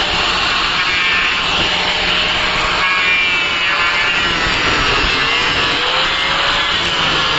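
Electric power tool running steadily while it cuts wood, with a whine that drifts slightly in pitch.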